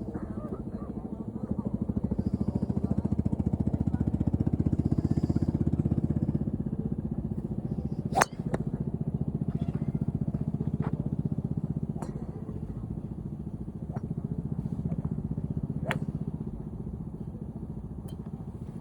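Golf club strikes on range balls: several sharp cracks, the loudest about eight seconds in and fainter ones every second or two after it. Under them runs a steady low engine rumble that eases off near the end.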